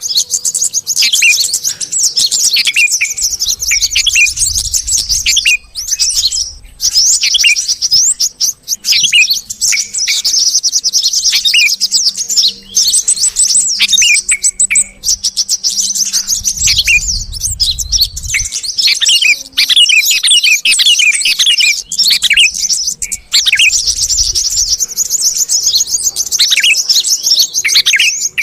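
Dense, almost nonstop chattering and chirping of bulbuls, a yellow-vented bulbul mixed with noisy sooty-headed bulbuls, in quick high-pitched runs with short whistled notes and only brief pauses. It is a lure call meant to draw small birds in.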